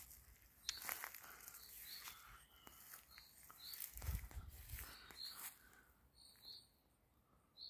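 Faint birds calling in the evening: short high chirps repeating every second or so. A brief low rumble comes about four seconds in.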